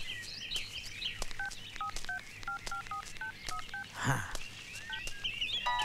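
Mobile phone keypad tones as a number is dialled: about a dozen short two-note beeps in quick succession, over faint bird chirps. A brief rush of noise comes about four seconds in. Near the end a melody of electronic tones starts, the called phone's ringtone.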